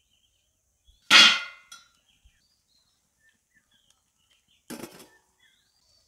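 A steel cake tin set down with a loud metallic clang and brief ringing onto the wire stand in an iron karahi of heated sand, used as an oven. Near the end a steel plate lid clatters down onto the karahi.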